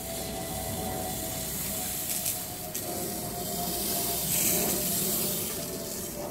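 Lawn sprinkler spraying water: a steady hiss that swells for a second or two in the middle. A faint steady tone runs underneath.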